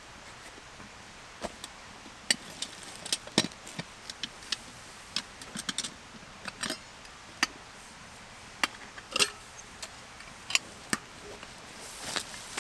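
A series of irregular sharp clicks and light knocks, some in quick clusters, over a faint steady background.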